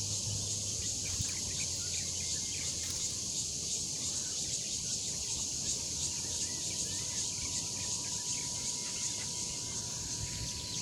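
Steady, high-pitched chorus of insects, with scattered short bird chirps over it.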